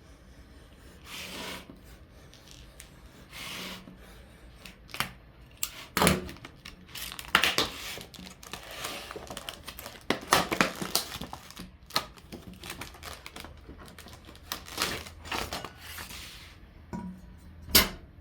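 Saw-blade packaging being opened by hand: irregular tearing, crinkling and rustling, with scattered sharp clicks and knocks and a loud click near the end.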